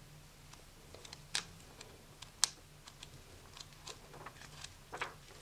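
Paper pages of a 1967 book being turned by hand: scattered soft rustles and sharp flicks of the paper, the sharpest about two and a half seconds in, with a run of smaller ticks near the end.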